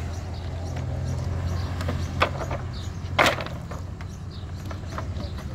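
An engine running with a steady low hum, with two sharp knocks about two and three seconds in, the second one louder.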